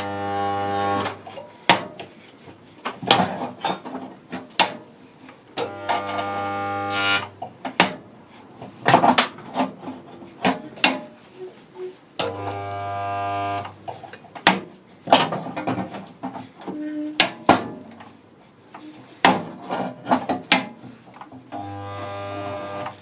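Resistance spot welder joining a car floor panel to the sill: four steady electrical buzzes of about a second and a half each as the weld current flows, at the start, about six seconds in, about twelve seconds in and near the end. Sharp clicks and knocks of the welder's tongs being moved and clamped fall between the welds.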